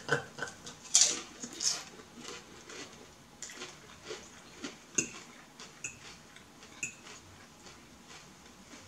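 A metal fork tapping and scraping against a plate of food, with scattered eating noises between. Three short ringing clinks come in the second half.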